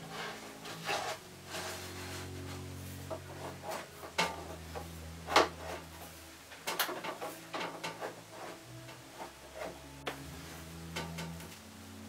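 Irregular metallic clinks, knocks and scraping as the steel shaft of a paddle mixer is handled and worked in beside the drum of a Dyson CR01 washing machine, whose drum is jammed by a metal fragment. The loudest is a sharp knock about five seconds in.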